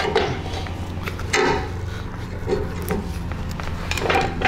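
A few clunks and scrapes of a VW swing axle and brake drum being handled by gloved hands, over a steady low hum.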